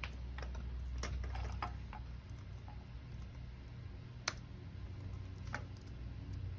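Typing on a laptop keyboard: scattered key clicks, with one sharper click about four seconds in, over a steady low hum.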